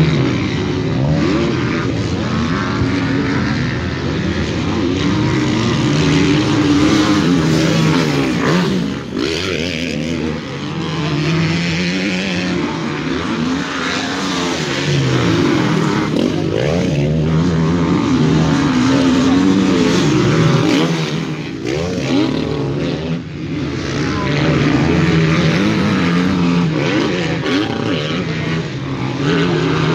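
Motocross dirt bikes racing, several engines at once, revving up and falling off again and again, with brief lulls twice.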